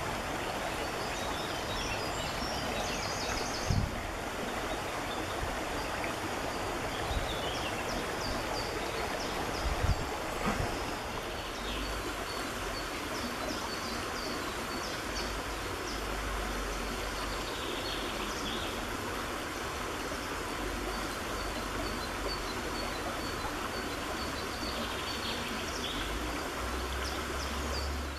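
Shallow, fast-flowing stream rushing steadily over stones, with many faint high chirps from small birds above the water noise. Two dull bumps stand out, near 4 s and 10 s in.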